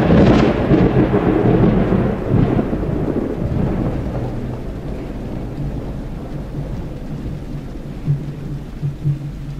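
A deep thunder-like rumble that swells at the start and dies away over about four seconds, leaving a steady low hum; near the end soft low pulses begin at an uneven beat.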